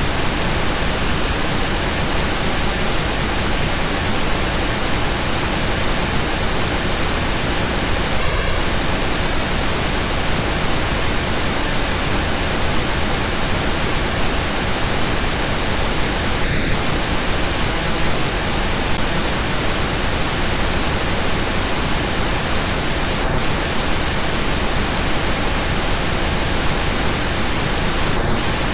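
Steady, even hiss of noise, like pink noise, spread over low and high pitches alike, with faint short high tones coming and going every second or two.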